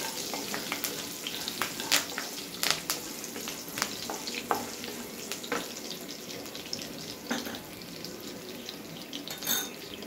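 Mustard seeds, cumin, curry leaves and chopped garlic sizzling in hot oil in a nonstick kadai, a steady sizzle with many sharp crackles and pops that thin out in the second half. A wooden spatula stirs the tempering at first.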